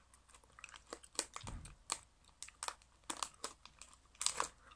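Plastic packaging crinkling as it is handled, a run of short, scattered crackles and clicks with a soft low thump about a second and a half in.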